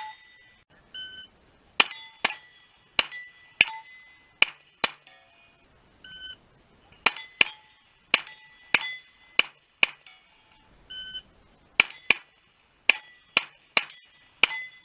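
Shot timer beeping, then a fast string of about six shots from a pistol-caliber carbine, with steel plates ringing on the hits. Beep and string repeat three times.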